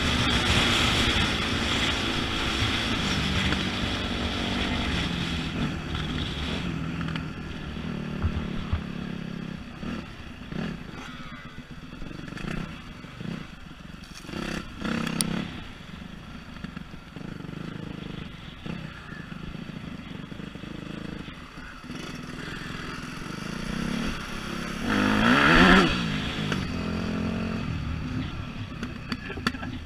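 Off-road dirt bike engine running and changing revs while riding a rough grass trail, with clattering knocks from the bumps. The engine is louder at first and eases off. Near the end a loud burst of revving sweeps up and down in pitch.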